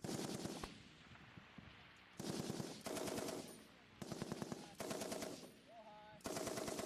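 M60 7.62 mm machine gun firing five short bursts in quick succession, each well under a second, with gaps between them: controlled 6-to-9-round bursts of range qualification fire.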